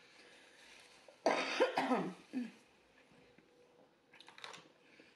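A woman coughing: a burst of several coughs starting a little over a second in, then one more short cough.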